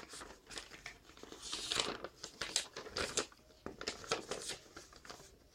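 Packaging being handled and opened by hand: irregular crinkling, rustling and small clicks of wrapping being pulled apart.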